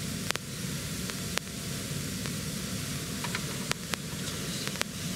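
A steady hiss with a low hum under it, broken by a few short, sharp clicks.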